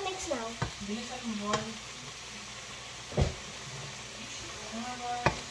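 Beef and vegetables sizzling in a hot wok as they are stir-fried with two wooden spatulas, with a few knocks of the spatulas against the pan, the loudest about three seconds in.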